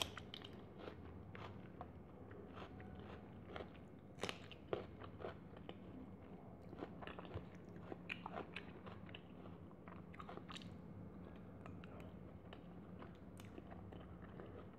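Close-miked eating sounds: chewing and many soft, irregular wet mouth clicks from a person eating rice and egg curry by hand, with fingers mixing rice on a steel plate.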